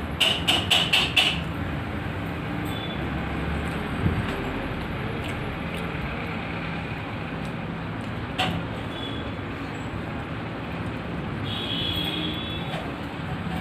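Background music with a tapping percussion beat stops about a second in, leaving a steady low background rumble. A single sharp click comes partway through, and a short high-pitched tone sounds near the end.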